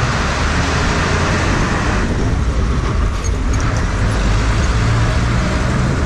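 Engine of the vehicle carrying the camera running as it moves off and drives along, a steady low rumble with road noise over it. The higher hiss drops back about two seconds in.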